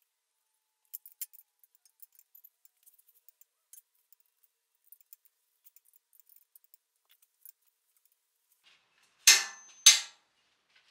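Light metallic clinks and taps of hand tools and brake parts, scattered and faint. Near the end come two short, loud rushing bursts about half a second apart, the first with a thin high tone in it.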